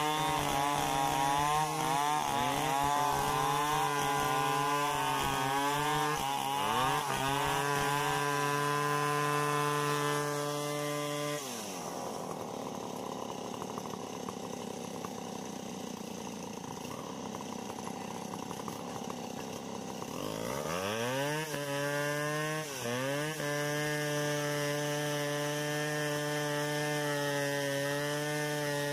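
Stihl 070 two-stroke chainsaw cutting lengthwise through a hard Acacia mangium log, its engine note wavering under load. About eleven seconds in the revs fall away and the saw runs quieter at low speed. About twenty seconds in it revs back up and runs steadily at high speed, with a couple of brief dips.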